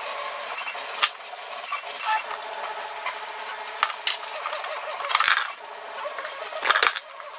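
Small M3 machine screws and washers clinking on a workbench as they are picked out of a loose pile and handled, a few sharp metallic clicks with short rattles, the loudest two near the middle and near the end.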